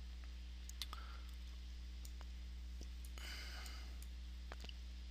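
Faint, scattered clicks of a computer mouse over a steady low electrical hum, with a brief soft hiss a little after three seconds in.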